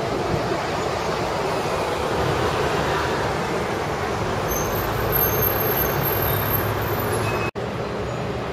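Steady noise of street traffic, with a momentary dropout about seven and a half seconds in.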